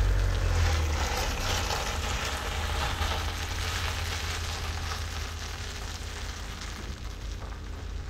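A vehicle's engine rumble fading steadily as it drives away, with an even hiss of tyre or road noise.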